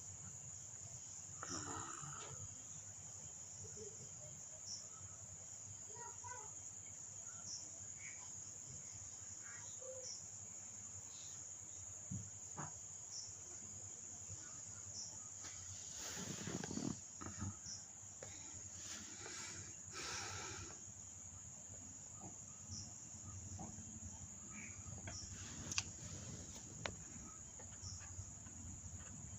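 Insect chorus trilling steadily at a single high pitch. A few brief rustling noises come around the middle, and a sharp click near the end.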